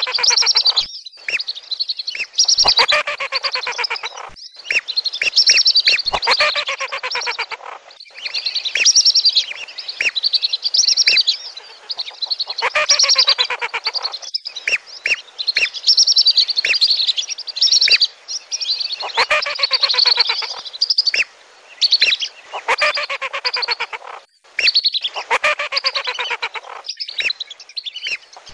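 A flock of lesser and wandering whistling ducks calling: shrill, rapid whistled twittering in bursts of a few seconds with short pauses between. This is a lure call, played to draw whistling ducks in.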